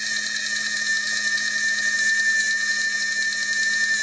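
Small shaded-pole motor of a Fr Sauter SW30 timeswitch running, driving its gear train to wind up the clockwork spring reserve, with a steady high-pitched whine over a low hum. It runs noisily, which the owner thinks may call for lubrication.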